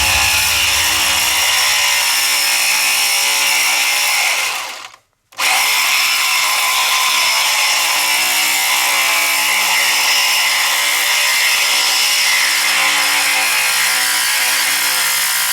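Power tool running steadily under load, dying away about four and a half seconds in and starting again abruptly half a second later.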